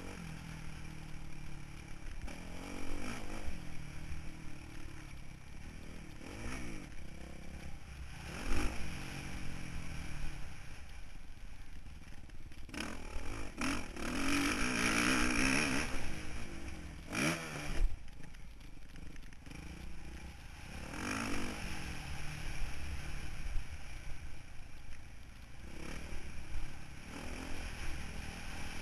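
Motocross bike engine revving up and down over and over as the rider works the throttle, picked up by the bike-mounted camera, with rattling and scraping from the bike over rough, rocky dirt. A louder rushing noise swells for a few seconds near the middle.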